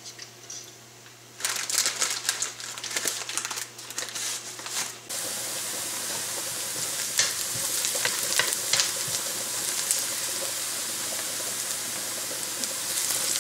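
Clicking and rattling of dry fettuccine being dropped into a steel pot of water. About five seconds in it gives way to chopped onion frying in oil in a nonstick wok: a steady sizzle, with occasional scrapes of a wooden spatula stirring the onion as it softens towards light golden.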